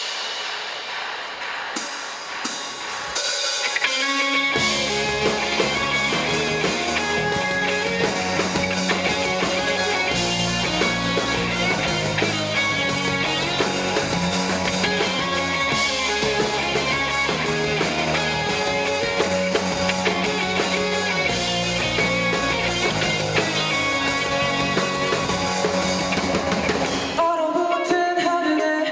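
Live rock band playing the song's intro: drums and guitar, with the full band and a steady bass line coming in about four seconds in. The bass drops out near the end.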